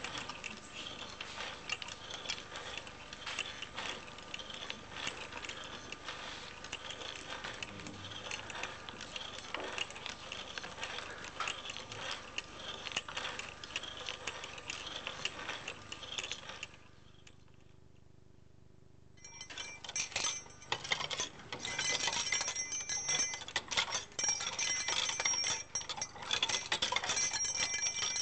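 Homemade wood-and-wire kinetic sculpture in motion, its wire cranks and wooden wheels rattling and clicking continuously. After a short pause about 17 seconds in, a second kinetic object runs, with small metal parts jingling and clinking over a bell-like ringing.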